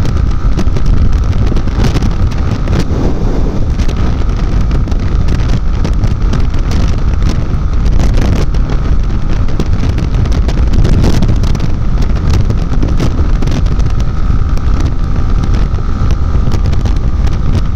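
Steady wind rush buffeting the microphone while riding a Yamaha XTZ Crosser 150 motorcycle at speed, with the bike's single-cylinder engine running underneath.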